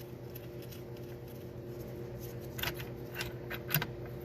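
A few light metal clicks, about two and a half to four seconds in, as gear selector parts from a Honda manual transmission are handled and slid back and forth, over a steady low hum.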